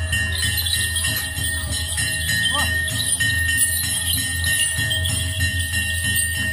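Small bells jingling continuously, over a steady low hum, while costumed procession performers step over a bonfire.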